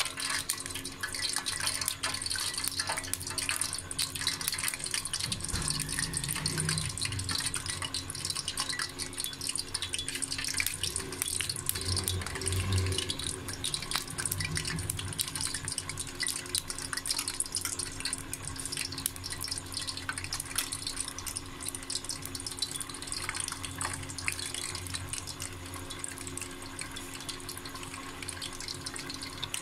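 Spoonfuls of pakora batter deep-frying in hot oil in a steel frying pan: a steady sizzle with dense crackling.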